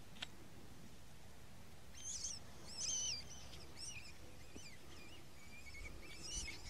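Rabbit squealing in distress as a lurcher catches it: a run of high, wavering cries about two seconds in, and more near the end. A sharp click comes just at the start.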